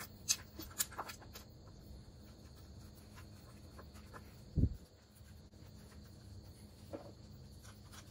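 Gloved hands fitting an engine mount bracket and hand-threading its bolts into a V6 engine block: a few light metal clicks near the start and one dull thump about halfway through.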